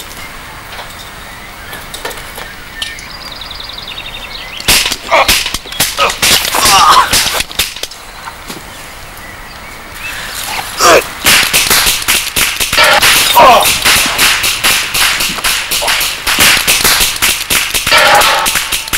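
Pistol gunfire in a mock gunfight: a rapid series of sharp cracks starting about five seconds in, coming thick and fast in the second half.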